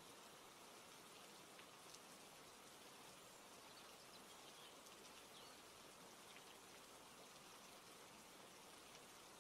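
Near silence: a steady faint hiss, with a few faint, short high chirps around the middle.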